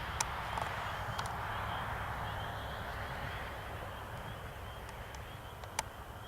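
Distant aircraft engine drone, a steady rushing noise that slowly fades away. A few sharp clicks come through it, about a second apart at first and once more near the end.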